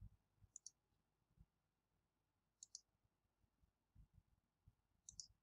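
Near silence with faint computer mouse clicks: three quick double clicks about two seconds apart.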